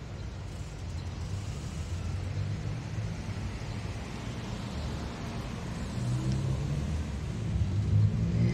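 City street ambience with car traffic: a low engine and tyre rumble that grows louder near the end, as a car comes close.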